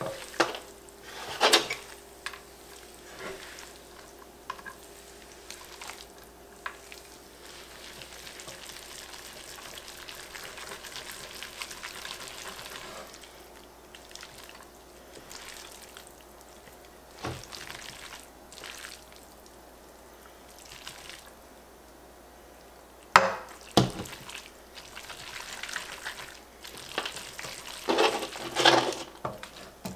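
Ramen noodles being vigorously tossed and stirred with metal tongs in a ceramic nonstick frying pan over low heat, working the egg-and-cheese carbonara mixture into the noodles, with a faint sizzle. The tongs clack sharply against the pan several times, loudest near the start and in the last quarter.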